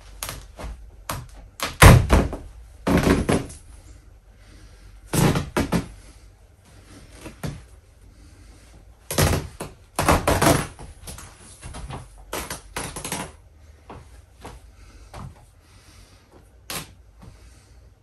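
A large stuffed plush horse being torn apart by hand: several sharp bursts of fabric and seams ripping, mixed with thumps and rustling as the toy is pulled and handled. The loudest burst comes about two seconds in.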